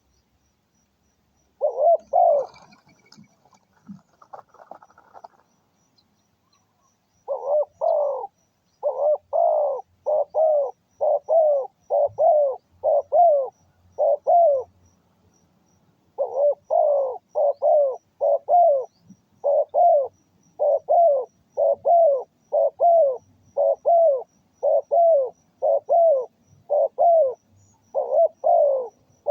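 A dove cooing in long runs of short, repeated notes, about two a second, with a pause partway through. A few seconds of rustling come before the runs begin.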